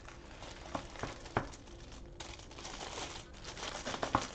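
Clear plastic wrap crinkling as it is pulled off a plastic paint case, with several sharp crackles.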